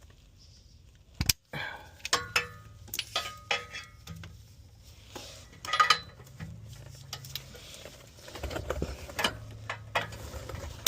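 Metal hand tools clinking and knocking against metal, with a sharp knock about a second in, as the seized downstream oxygen sensor is worked on to cut and break it off. A low hum runs underneath from about two seconds in.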